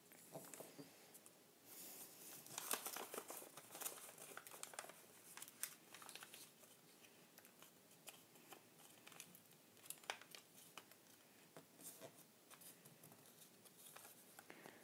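Faint rustling and crinkling of a sheet of paper being folded and creased by hand, with a few sharp ticks, busiest in the first few seconds and then only scattered.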